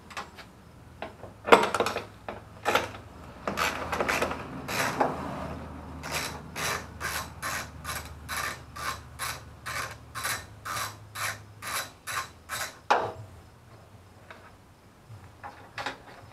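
Socket ratchet wrench working a bolt in the engine bay: a few uneven ratcheting strokes and scrapes first, then a steady run of ratcheting strokes, about three a second, for six or seven seconds, stopping a few seconds before the end.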